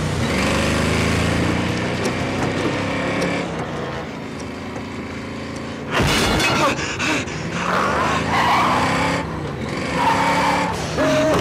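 Car engine running over a hiss of heavy rain. About six seconds in, a sudden loud crash hits the car, followed by further thuds and breaking sounds.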